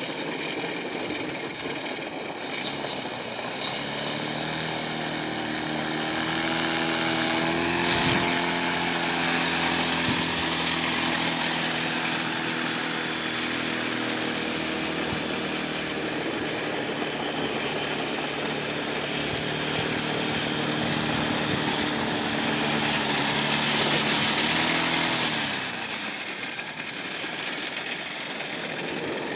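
Homemade aerosled's propeller and motor pushing the sled across ice: a steady pitched propeller drone with a high whine above it. It spools up about three seconds in, holds steady, revs briefly near the end, then throttles down.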